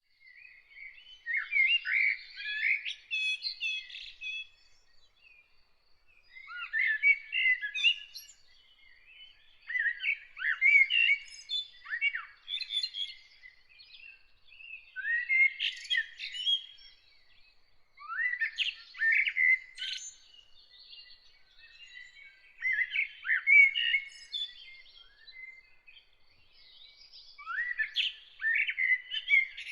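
A songbird singing: a run of varied, quick phrases, each two to three seconds long, with short pauses between, about seven in all.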